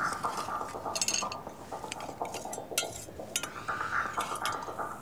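Metal kitchen utensils clinking against a pot on the stove, with scattered sharp clicks and a short ringing clink about a second in.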